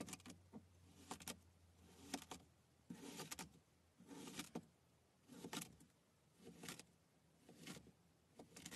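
Kinetic sand being sliced with a clear flat blade pressed straight down. Each cut is a short crunch, about nine of them at roughly one a second.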